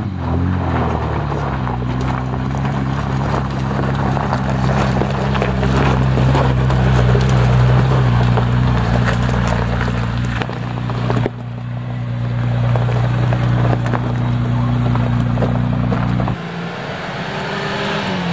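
Volvo TGB 13 6x6 cross-country truck's straight-six petrol engine running steadily as the truck drives, its note wavering briefly at first. The sound changes abruptly a few times, with a falling pitch at the very end.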